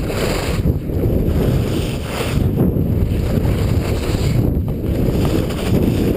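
Wind buffeting a GoPro action camera's microphone during a fast ski descent, a loud, steady rumble. Hissing rises come through every second or two, from the skis running over snow through the turns.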